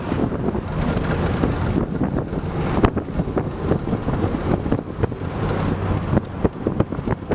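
Converted electric VW Beetle driving under acceleration: steady road and wind noise with frequent knocks and rattles, and one sharp click about three seconds in.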